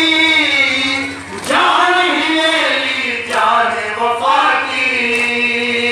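Men chanting a noha (Urdu mourning lament) in chorus through a microphone and PA, singing long held notes that glide from one pitch to the next.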